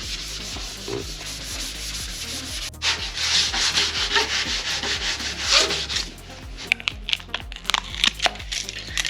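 Abrasive rubbing strokes sanding surface rust off a Porsche 964 Turbo rear wing, with a few sharp clicks near the end. Faint background music sits underneath.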